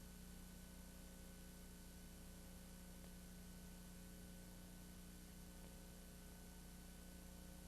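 Near silence: a faint, steady low hum and hiss with no other sound.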